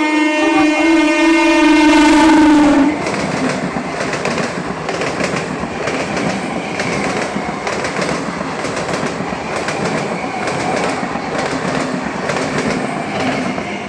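A through train's horn sounding loud and steady, cutting off about three seconds in. Then the rumble of the train passing at speed, with a repeating clickety-clack of the wheels over the rail joints.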